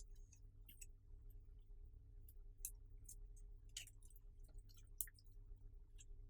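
Clear slime being kneaded and stretched by hand, giving faint, irregular sticky clicks and small pops, a few louder than the rest.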